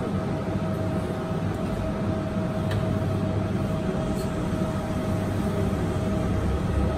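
Onboard a rubber-tyred automated guideway train (Yurikamome) running along its elevated concrete guideway: a steady low rumble from the tyres and running gear, with a constant whine over it.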